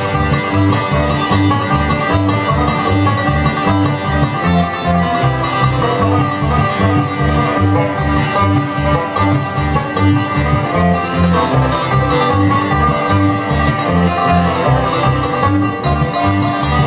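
Bluegrass band playing an instrumental break: banjo and guitar picking over a steady bass beat.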